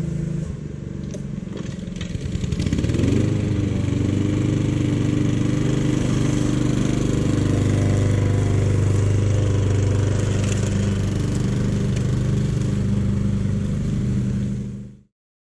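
Gasoline lawn mower engine running, rising in pitch as it speeds up about three seconds in, then running steadily at speed. The sound cuts off abruptly near the end.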